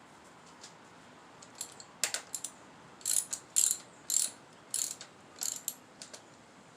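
Ratchet wrench with a 14 mm socket tightening fasteners on a 1972 Honda CB450: short bursts of rapid pawl clicking on the back-swings, repeating about every half-second, starting about two seconds in.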